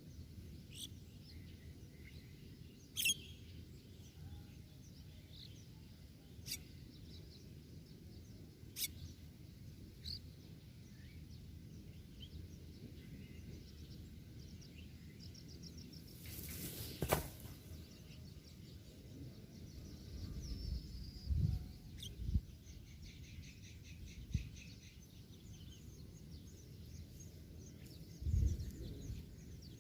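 Birds giving short, sharp chirps now and then over a quiet outdoor background, with a brief hissing burst about halfway through and a few low thuds near the end.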